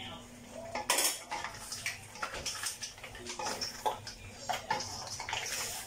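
Wooden spoon stirring a seafood curry of mussels, shrimp, corn and potatoes in a stainless steel wok: irregular knocks and scrapes against the pan, the loudest about a second in.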